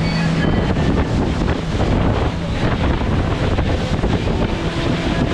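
Strong wind buffeting the microphone, with a steady low hum underneath that fades in and out.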